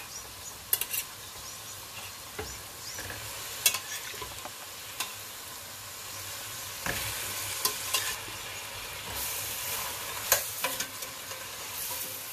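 Onion-tomato masala sizzling in hot oil in a stainless steel pot as boiled mutton pieces are added and fried in it, with sharp clinks of a metal spoon against the pot as it is stirred. The sizzle gets louder about seven seconds in.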